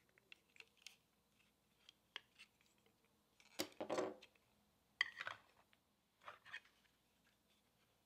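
Faint handling of a snowflake LED projector's cord and plastic power adapter on a wooden table: scattered light clicks, a longer rustle of the cord about three and a half seconds in, then a sharp plastic clack about five seconds in and a shorter clatter a second later.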